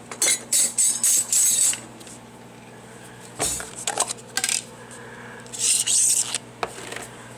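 A table knife scraping and spreading cream cheese across a slice of raisin bread, in several short strokes with pauses between them. A microwave oven hums steadily underneath.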